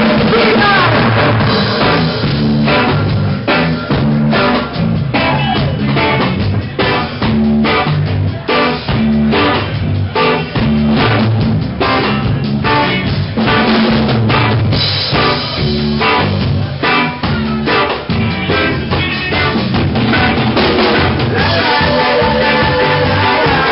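Live ska band playing, the drum kit to the fore with snare and bass drum keeping a steady, driving beat over electric guitars and bass.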